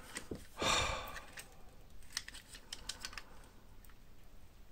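Light clicks and taps of a vintage Popy metal-and-plastic toy spaceship piece being handled and turned over in the hands, with a short louder burst of noise about half a second in.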